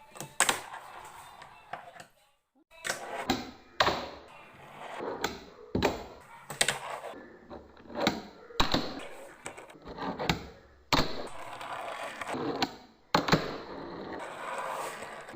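Irregular knocks and clatter of kitchen utensils and cookware being handled, a sharp hit every second or so over a light background hiss.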